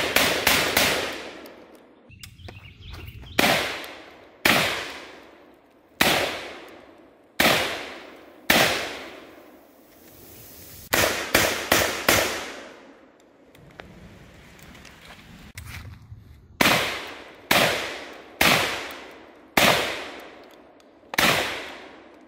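Citadel Boss 25 semi-automatic 12-gauge shotgun firing about twenty shots. Some come in quick strings of three or four within about a second, others about a second apart, and each shot rings out and fades.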